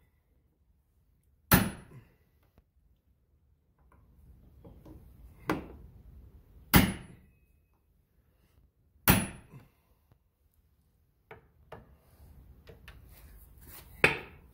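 Hammer blows on a hand-held manual impact driver seated in a Torx 40 windshield bolt: five sharp metallic strikes a few seconds apart, with faint clinks and handling between them. Each blow twists the bit a little to break the seized bolt loose.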